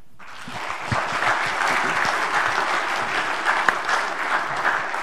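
Audience applauding: many hands clapping together, starting right away, reaching full strength about a second in and thinning near the end.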